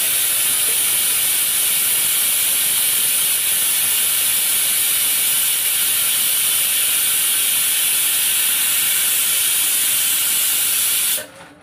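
Pressure cooker on a gas stove venting steam: a loud, steady hiss that cuts off suddenly near the end.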